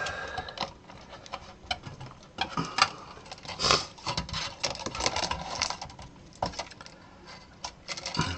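Irregular clicks, scrapes and light rattles of hands handling an LCD monitor's sheet-metal chassis and pulling its cable connectors. The loudest are a sharp click a little under 3 seconds in and a scrape just after.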